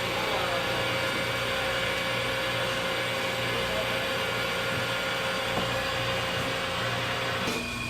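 A small machine running steadily, a whirring noise with a constant whine over a low hum, which stops about seven and a half seconds in.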